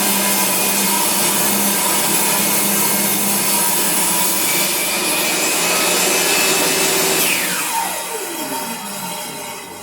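Makita 2704N table saw running through a rip cut in recycled Australian ash. About seven seconds in the saw is switched off, and its whine falls steadily in pitch as the blade spins down.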